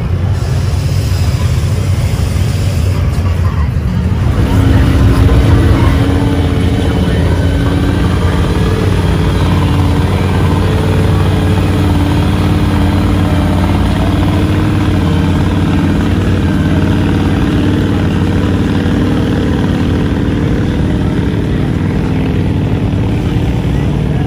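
Large engine of a big-tyred swamp buggy running as it pushes through mud and water, a steady low rumble that swells louder about five seconds in.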